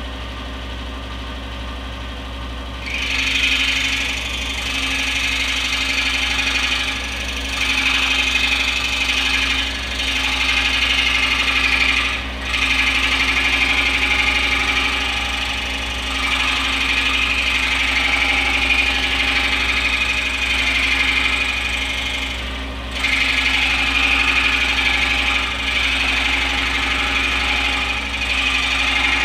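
Scroll saw running, its reciprocating blade cutting through a wooden dovetail tail board. A steady motor hum is joined about three seconds in by the louder rasp of the blade in the wood, which drops out briefly twice as the cut pauses.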